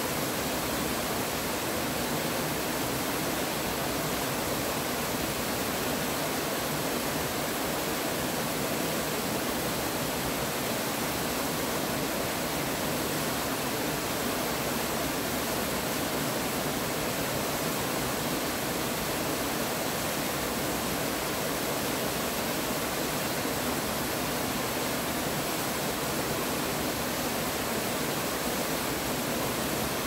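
Waterfall pouring down a rock face into a plunge pool: a steady, even rush of falling water that does not change.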